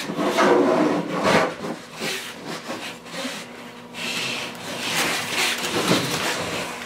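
White foam insulation sleeve on a copper A/C line set rubbing and scraping as it is handled and fed into a wall opening, in a series of uneven strokes.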